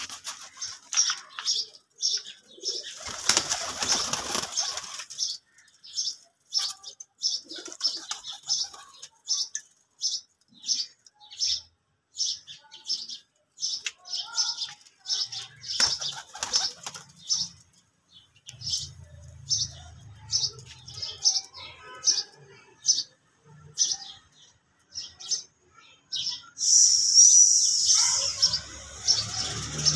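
Domestic pigeons in a loft flapping their wings in a few loud bursts, the loudest near the end. A steady run of short, high chirps goes on about twice a second, with low pigeon cooing in places.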